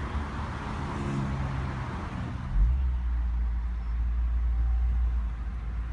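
Road traffic: a steady hiss of vehicles with a low engine hum. About two and a half seconds in it changes abruptly to a deep, steady rumble heard from inside a car.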